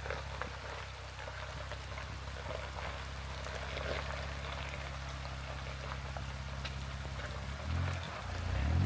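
Rain falling, with scattered individual drops ticking, over a low steady hum that shifts and rises in pitch near the end.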